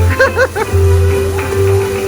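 Wild Fiesta'coins slot machine playing its upbeat game music with a pulsing bass beat: a short voice-like phrase at the start, then a long held note.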